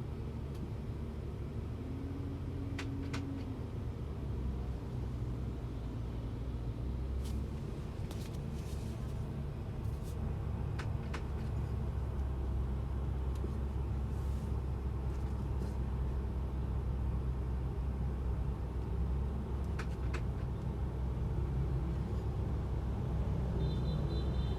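Bentley car rolling at low speed, a steady low rumble with a few sharp knocks scattered through it: the clunk heard at around 5 mph.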